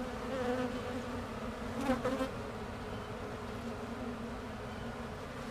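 Honeybees buzzing in a steady, gently wavering hum over a hive opened for inspection, with a short click about two seconds in.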